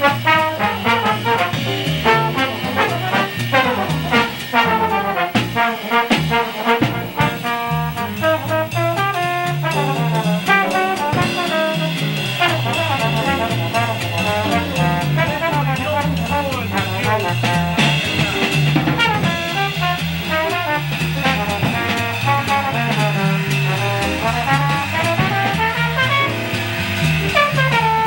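Jazz combo playing a swing blues in B-flat: trombone over a walking upright bass line and drums.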